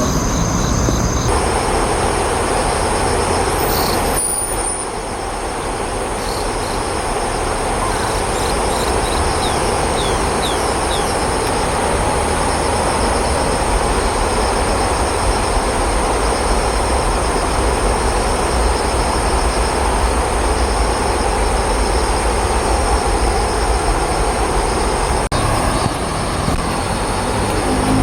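Steady loud rumbling background noise, like passing rail or road traffic, with a thin high hiss held above it.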